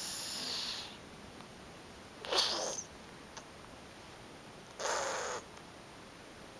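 A cat breathing noisily in a snoring-like way: three breathy, raspy breaths, about two and a half seconds apart.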